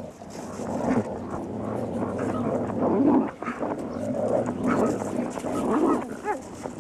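Coyotes snarling and growling as they scuffle in a fight over food, with a few short higher yelps near the end.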